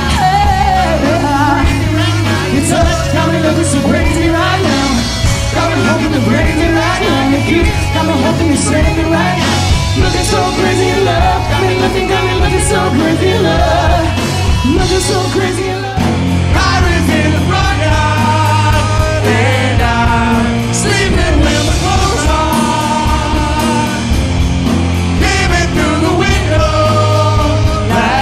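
Live rock and pop band playing, with a woman singing lead over electric bass and drums. About halfway through the music breaks off and cuts straight into another passage.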